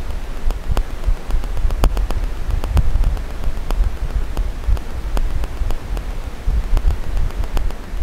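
Wind buffeting a wildlife trail camera's microphone: an uneven low rumble, with scattered sharp ticks throughout.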